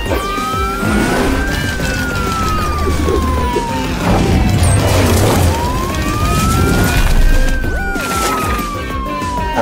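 Wailing siren that rises and falls slowly twice, each rise and fall taking several seconds. It plays over upbeat background music with a heavy bass beat and a few sharp whooshing hits.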